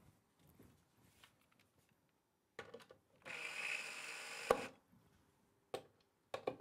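Makita cordless drill-driver running for about a second, driving a screw into a concealed cabinet door hinge, and stopping with a sharp click. Light handling clicks come before it, and the run starts a little over three seconds in.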